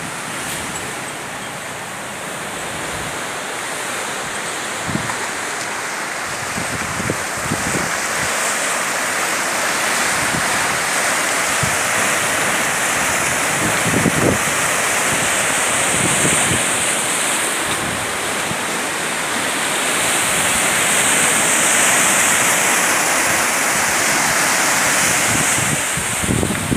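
Sea surf washing over rocks below a seawall: a steady rushing hiss that swells louder about two-thirds of the way through, with a few low thumps.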